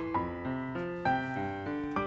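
Background piano music: a gentle melody of sustained chords.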